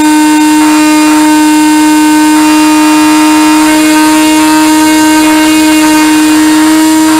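Motor and propeller of a radio-controlled model airplane, heard through the plane's onboard camera: a loud, steady drone that holds one pitch throughout.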